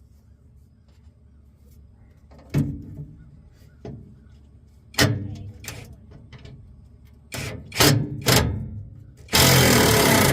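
Sharp metal knocks and clunks from tools and parts being handled during repair work on a truck: a few spaced ones, then a quick cluster of three or four. Near the end comes about a second of loud rasping noise.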